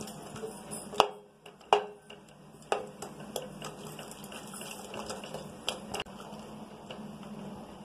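Wooden spatula stirring instant noodles in water in an aluminium pot, knocking against the pot's side in sharp irregular clicks about a second apart, over a steady low hum.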